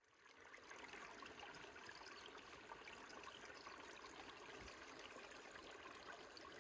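Faint, steady rush of a flowing creek, fading in over the first second.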